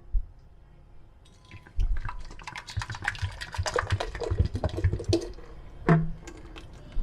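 Thick tomato puree pouring from a blender pitcher's spout into a container, splattering and glugging irregularly from about two seconds in until about five seconds in.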